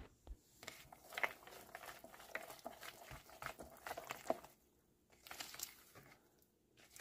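White spatula stirring chopped walnuts into thick cake batter in a bowl: faint, irregular scraping and squishing, with a short pause about four and a half seconds in.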